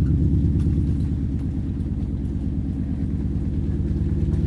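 Porsche Cayenne S V8 engine running as the car drives, a steady low rumble that slowly grows louder.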